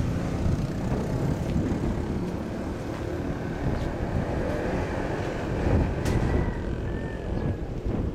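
A steady low engine rumble from machinery, with a sharp click about six seconds in.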